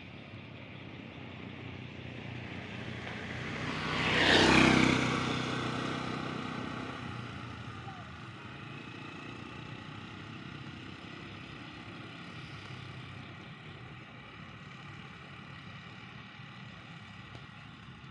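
A motor passes close by, growing louder for about two seconds, peaking about four and a half seconds in, then fading over the next few seconds.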